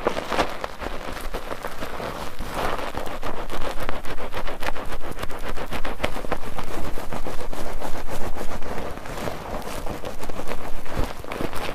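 Bar soap being worked into a lather in a foaming net: continuous wet squelching and fine crackling of bubbles, louder through the middle stretch.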